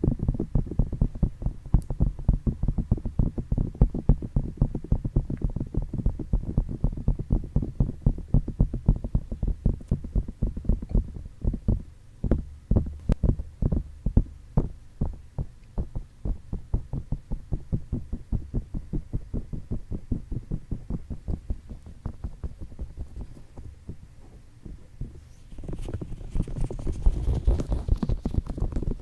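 Fingertips tapping rapidly on a microphone's ears, a fast run of dull, muffled taps. Near the end the tapping gives way to rubbing or scratching over the mic's ears, with a brighter hiss.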